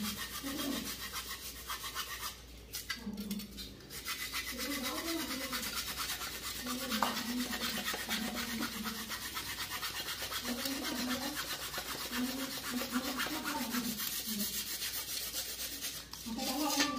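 Hacksaw blade, held by hand without a frame, sawing through crown molding in quick back-and-forth strokes, with a short pause about two to four seconds in.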